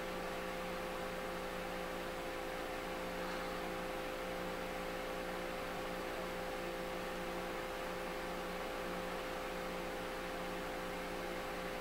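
Steady electrical hum with several unchanging tones over a faint even hiss. No distinct handling sounds stand out.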